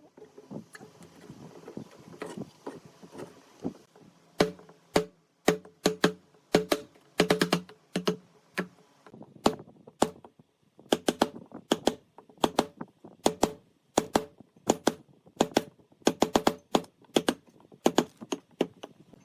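Repeated sharp knocks of a tool striking wood, about two a second. They are faint at first, louder from about four seconds in, with a short pause near the middle.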